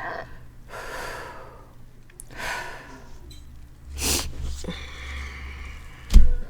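A woman breathing hard, with short gasps and snorting breaths through the nose, while chugging a 2-liter soda. A loud low thump about six seconds in.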